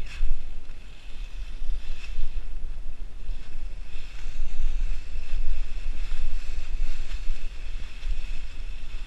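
A deer carcass being dragged over dry fallen leaves, giving a steady rustling and crunching of leaf litter, with wind rumbling on the microphone.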